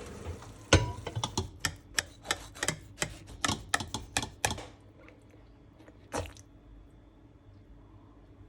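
Quick run of sharp clicks and taps, metal utensil on dishware, about four a second for some four seconds, then a single tap a couple of seconds later.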